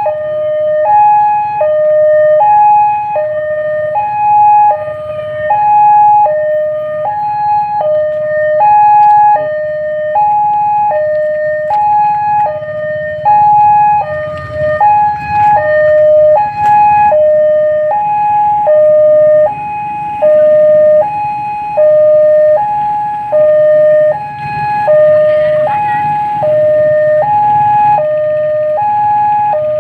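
Railway level-crossing warning alarm: an electronic two-tone signal swapping evenly between a higher and a lower tone about every 0.7 seconds, repeating without a break. A low steady rumble runs underneath.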